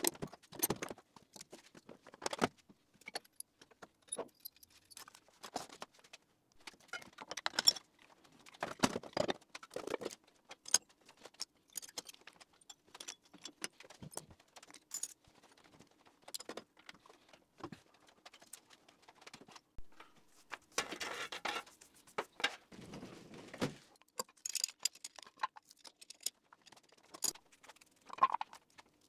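Metal hand tools and parts clinking and clattering as they are picked up and set down during a workshop tidy-up: irregular clinks and knocks, with a few longer scraping sounds about two-thirds of the way through.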